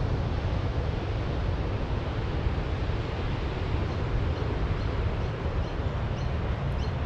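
Wind buffeting the microphone, a steady low rumble over a constant outdoor hiss, with a few faint high chirps in the second half.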